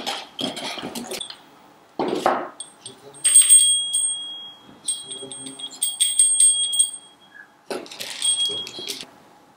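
Cardboard box flaps rustling as the carton is opened, then the small metal bell inside a cat-paw-shaped door bell ringing as it is shaken, in a run of quick strikes for about four seconds and a shorter ring near the end.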